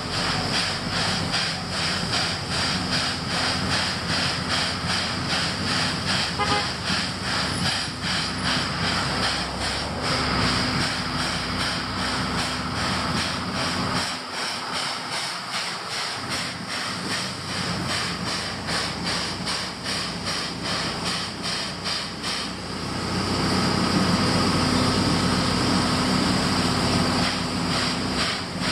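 C11-class steam locomotive (C11 325) running, heard from a car driving alongside: a rapid, even beat of exhaust chuffs over road and wind noise. About 23 seconds in, the beat fades under a steadier, louder rush of car and wind noise.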